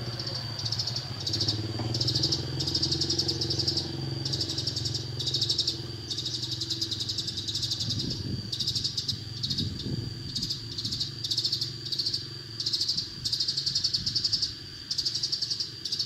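Sparrow chirping, a lure recording of Eurasian tree sparrow calls played through a bird-trapping loudspeaker, coming in short repeated bursts of rapid high chirps, over a steady high-pitched tone.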